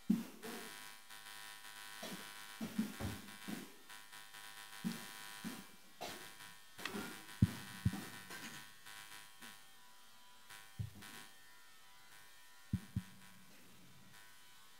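Steady electrical buzz and hum from a stage sound system, with scattered low thumps and knocks, two sharp pairs of them about halfway through and near the end.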